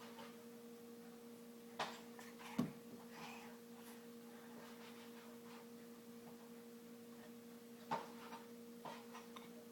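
A steady low electrical hum in a quiet room, broken by a few short knocks and clicks, the loudest a dull thump about two and a half seconds in.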